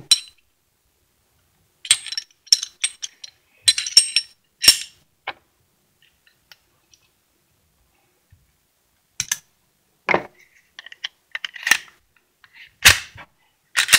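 Scattered clicks and light metallic clinks of Glock 43 parts being handled and fitted back together: the recoil spring assembly going into the slide, then the slide going onto the frame. There is a quiet stretch of a few seconds in the middle.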